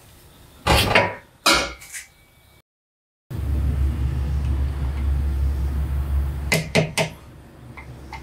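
Hammer striking a punch to stake a new rear axle nut on a Subaru WRX into the axle's groove, locking it after torquing. Two ringing metal knocks come about a second in, and three sharp strikes in quick succession come near the end, with a steady low hum in between.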